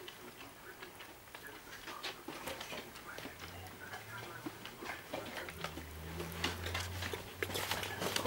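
Border collie puppy eating from a stainless steel bowl: a rapid run of small clicks and crunches as it chews kibble and its mouth knocks the metal bowl, busiest near the end.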